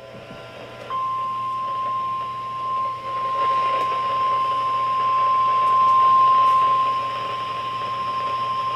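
NOAA Weather Radio 1050 Hz warning alarm tone: one steady, unbroken beep that starts about a second in and holds, over radio static. It signals that a warning is about to be broadcast.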